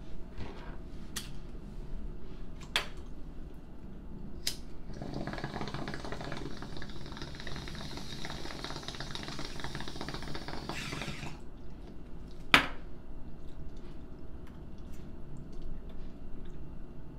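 A few sharp clicks, then water bubbling in a bong for about six seconds as a hit is drawn through it, followed by one loud sharp click.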